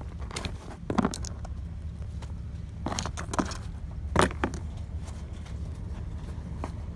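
Handling of a DD15 crankcase breather and tools on cardboard: light metallic clinks and rattles in three short clusters, over a steady low rumble.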